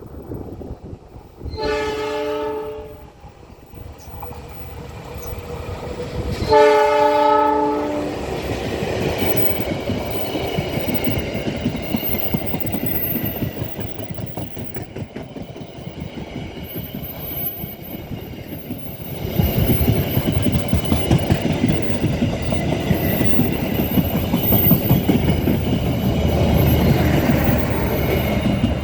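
Indonesian (KAI) locomotive's multi-tone horn sounded in two blasts of about a second and a half, some five seconds apart, as a greeting from the driver. The train then runs past with its wheels rumbling and clacking over the rail joints, growing louder about two-thirds of the way in.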